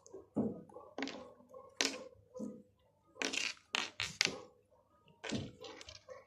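Slime and utensils being handled and set down on a tabletop: a series of irregular sharp knocks, clacks and crackles, with a close cluster of them in the middle.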